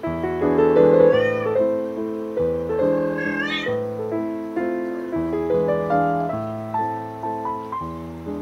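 Slow, relaxing keyboard music with held, piano-like chords changing about once a second, with a meow-like cat cry twice, about a second in and just past three seconds in.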